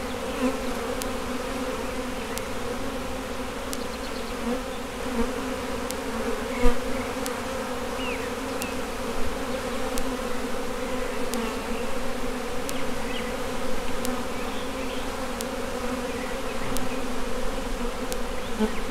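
Steady buzzing hum of a large mass of Italian hybrid honey bees on the open frames of a newly installed package colony, with a single sharp knock about a third of the way through.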